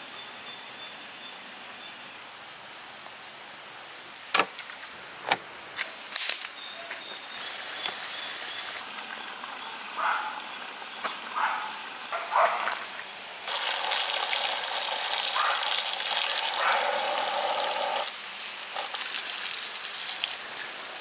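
Water from a garden hose gushing, then splashing over skinned sole fillets on a banana-leaf-lined plate as they are rinsed, loudest in the second half. A few sharp clicks come a few seconds in.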